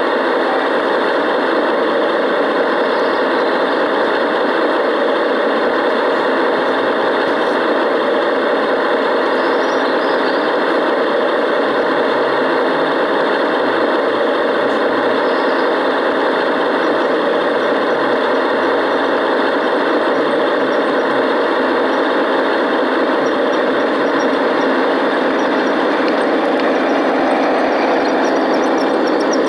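Large-scale garden-railway diesel locomotive running, a loud, steady engine-like noise that holds unchanged throughout.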